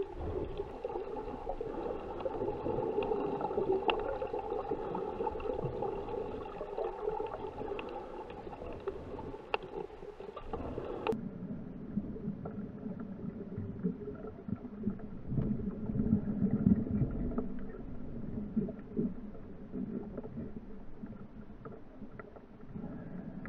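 Muffled underwater rumbling and water movement picked up by a camera in its waterproof housing while the snorkeler dives. The sound changes abruptly about eleven seconds in and turns duller.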